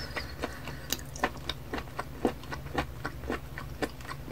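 Wet mouth clicks and smacks of a person sucking in and chewing a raw live octopus tentacle, a regular series of sharp wet clicks at about four a second.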